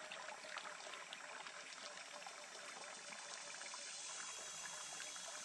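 Water trickling and splashing steadily from a hose outlet into a shallow stream.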